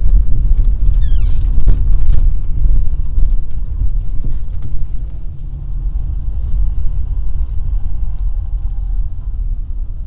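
Low, steady vehicle rumble that eases off over the second half, with a short falling squeal about a second in.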